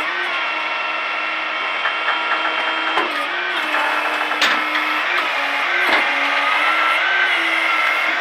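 Jerr-Dan flatbed tow truck's hydraulic system whining steadily as it winches a car up the tilted bed, the pitch dipping briefly several times. Three sharp knocks come through partway along.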